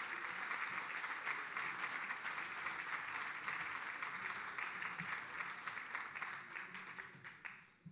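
A standing banquet audience applauding with dense, steady clapping that dies away near the end.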